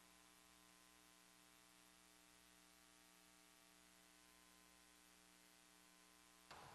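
Near silence with a faint steady electrical hum; a faint brief sound comes in just before the end.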